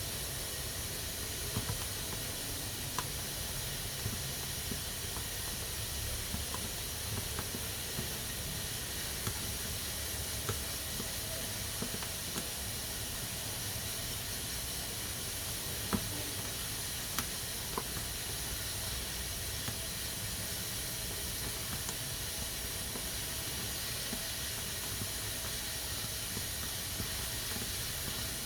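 Pressure cooker letting off steam: a steady, even hiss from its valve, with faint scattered clicks now and then.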